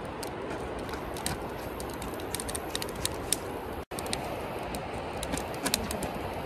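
Campfire crackling in a metal fire ring: irregular sharp pops over a steady hiss.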